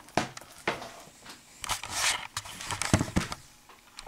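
A plastic-wrapped Blu-ray case handled on a wooden table: irregular clicks, a crinkle of plastic, and a knock about three seconds in as the case is set down.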